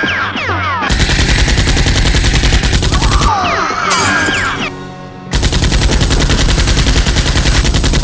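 Two long bursts of rapid machine-gun fire over music, with a short lull between them a little past the middle.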